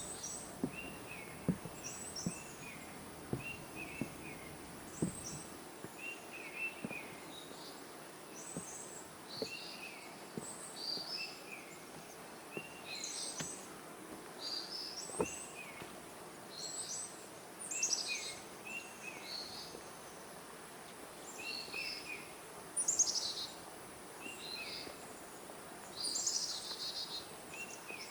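Several forest birds calling, with short high chirps repeated over and over, some in quick descending runs, over a faint steady high hiss. A few soft footsteps on the path sound in the first five seconds.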